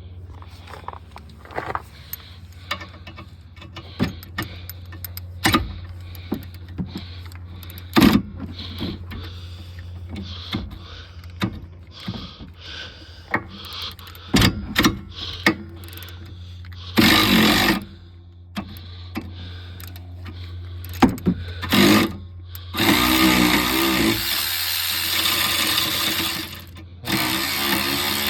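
Ratchet wrench and metal clanks working a seized brake caliper guide pin loose: scattered sharp clicks and knocks, then longer stretches of continuous ratcheting, one midway and a longer one near the end.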